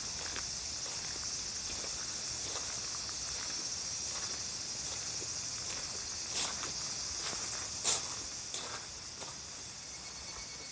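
Steady high-pitched chorus of summer insects, with a few light footsteps in the second half, the loudest about eight seconds in.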